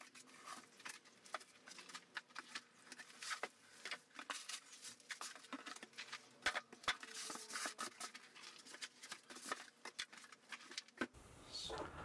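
Faint rustling of packing material and plastic wrap, with scattered light clicks and knocks as parts are lifted out of a cardboard box and handled.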